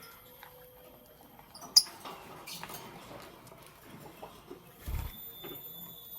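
Lovebirds moving about, with light scratching and pattering of feet and beaks. One short, sharp, high chirp comes about two seconds in and is the loudest sound, and there is a low thump about five seconds in.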